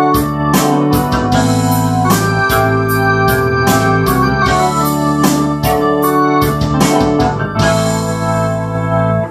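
Ensoniq SD-1 synthesizer keyboard playing sustained chords over a low bass, with repeated note strikes. The music stops abruptly at the very end.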